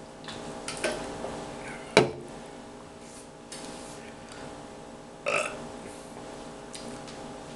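A man burps after swigs from a can of hard iced tea lemonade. There are two short, loud sounds, one about two seconds in and one a little after five seconds; the first is the louder.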